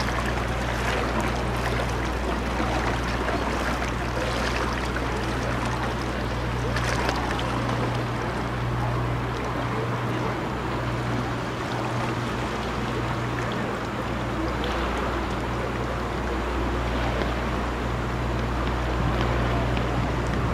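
A boat's engine running with a steady low hum, under an even rushing noise of water and air.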